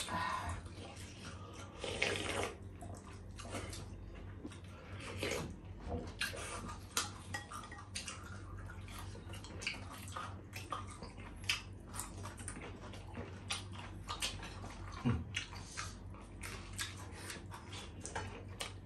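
Close-up eating sounds: wet chewing, lip smacks and slurping of miswa noodle soup from a spoon, with many short clicks throughout.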